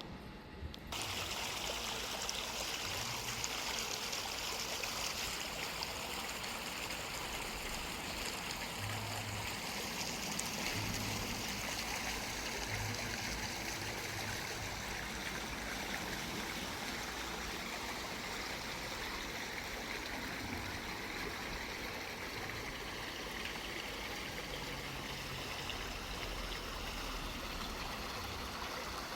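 Steady rush of running water, starting abruptly about a second in and holding level throughout.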